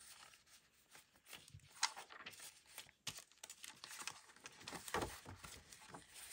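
Sheets of paper, vellum prints among them, rustling and sliding as they are handled, with light taps. A soft thump comes about five seconds in.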